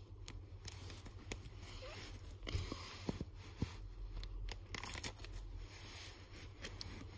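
Plastic sleeve pages of a card binder rustling and crinkling as they are handled and turned, with a few sharp taps and clicks in the middle.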